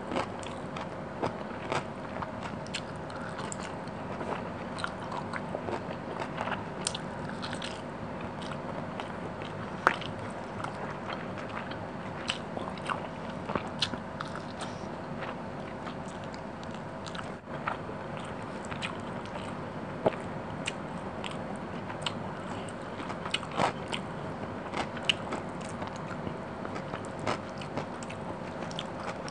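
Close-miked eating sounds: chewing fish curry and rice, with frequent small wet clicks and smacks from the mouth and from fingers working the food on the plate, over a faint steady hum.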